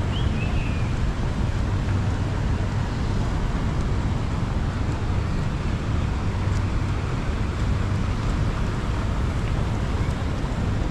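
Steady outdoor ambient noise with a constant low rumble and no distinct events.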